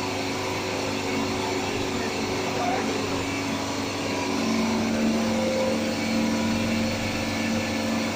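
Underground jumbo drill rig's hydraulic power unit running, a steady machine hum with several held whining tones; about halfway through one tone grows louder and a higher tone joins it, as the rig takes on load.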